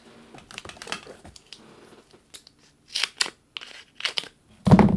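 Foam adhesive and its paper backing being handled: scattered rustles, crinkles and small clicks, with a loud thump near the end.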